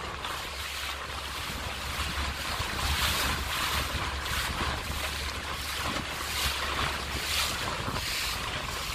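Wind rushing over the microphone and choppy river water splashing around a moving boat, swelling and easing every second or so, with a low steady hum underneath.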